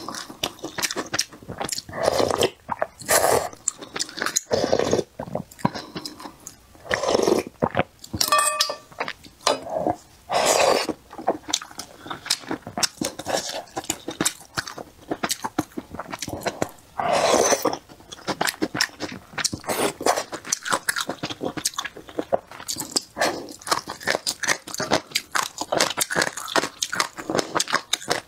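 Close-miked eating of wonton soup: wet chewing with many small mouth clicks, broken several times by louder slurps lasting about a second each.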